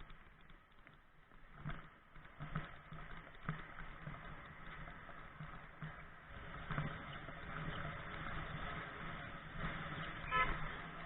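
Road traffic noise that grows louder from about halfway through as a car comes close, with a short horn blast near the end.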